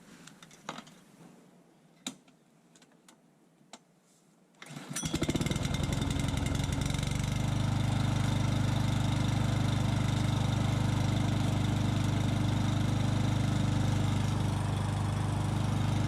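Masport lawnmower engine starting about five seconds in, after a few light handling clicks, and then running steadily. It is running after repair of a sheared flywheel key.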